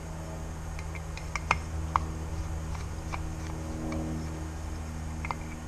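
Scattered small clicks and taps from an LED pot light and its bracket being handled and taken apart, the two loudest about a second and a half and two seconds in, over a steady low hum.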